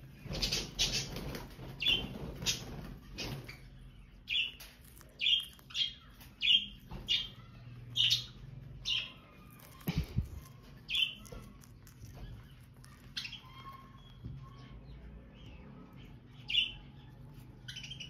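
Indian ringneck parrots giving a string of short, high chirps at irregular intervals, with scratchy noises in the first few seconds as one bites at a green chilli.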